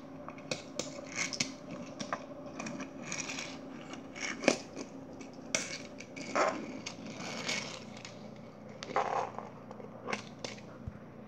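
Quiet, scattered scrapes, rustles and light clicks of a small plush toy being handled and pushed about on a wooden floor.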